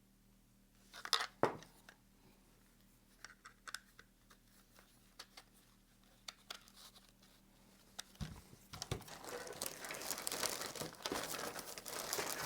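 A few sharp clicks and small taps of small holster hardware being handled, then from about eight seconds in a plastic bag crinkling and rustling steadily.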